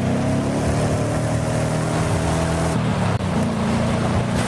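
A small motor running steadily, with a hiss over it.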